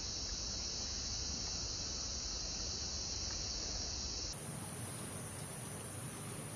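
Steady high-pitched drone of insects in the background, shifting abruptly to a higher pitch about four seconds in.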